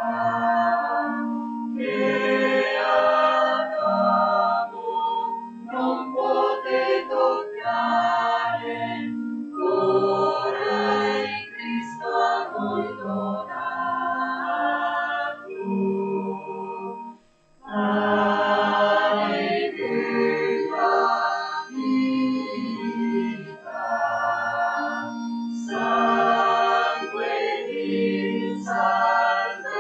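Voices singing a slow hymn in phrases over sustained organ accompaniment, breaking off briefly a little past halfway before going on.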